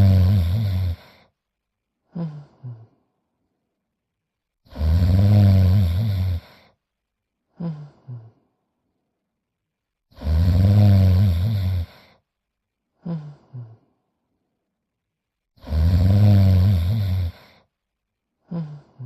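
Cartoon dog's snoring effect: a loud snore of about two seconds followed by two brief quieter sounds, the cycle repeating evenly about every five and a half seconds, four times over.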